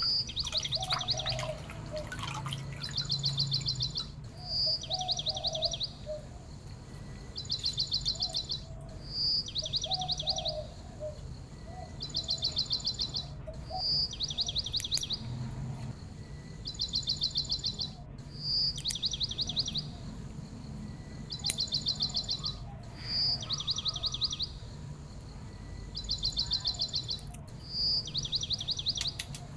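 A bird call repeating at an even pace about every four and a half seconds: a short high note followed by a fast, rattling trill.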